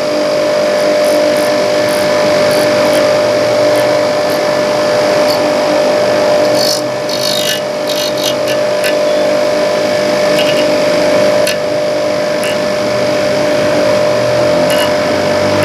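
Metabo DS 200 bench grinder running steadily with a constant motor whine, while a pencil held to the spinning wheel touches it in short, scratchy ticks, with a longer scrape about seven seconds in. The pencil is catching where the wheel surface is uneven.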